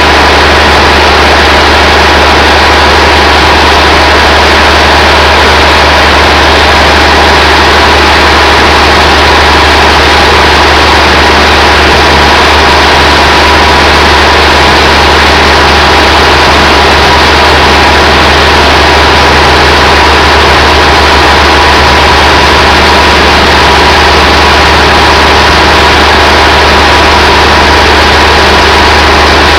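Sawmill machinery running steadily and very loudly, an engine-like drone with no change in pitch or rhythm.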